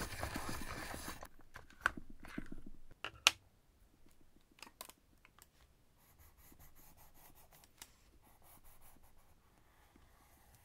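Hand-crank pencil sharpener grinding a colored pencil for about the first second, then a few sharp clicks and knocks. From about six seconds in, a colored pencil scratches lightly on paper.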